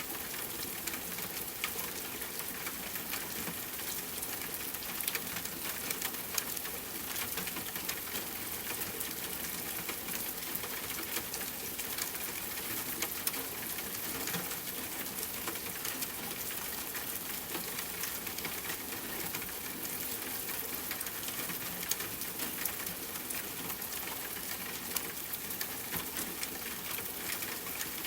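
Steady rain falling, a dense even hiss with frequent sharp ticks of single drops striking a hard surface.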